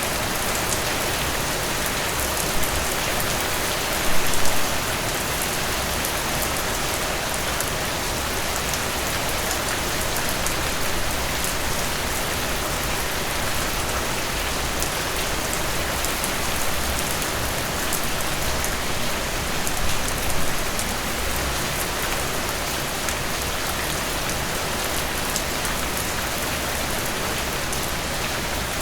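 Steady rain falling, a dense even hiss of drops with fine patters through it. Two brief louder swells come about four seconds in and again around twenty seconds.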